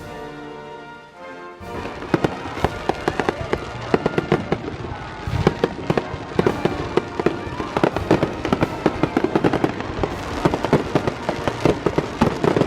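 Brief background music, then about two seconds in a dense run of fireworks starts: rapid bangs and crackling, many per second, continuing without a break.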